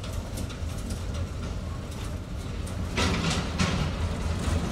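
Small narrow-gauge industrial locomotive's engine running with a steady low throb, with light clicks over it. About three seconds in, a louder rush of noise comes in on top.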